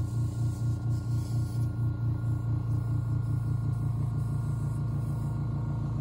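Airbrush compressor running: a steady low hum that pulses about two or three times a second, evening out about halfway through.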